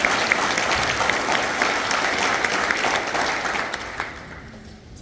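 Congregation applauding, the clapping thinning out and dying away about four seconds in.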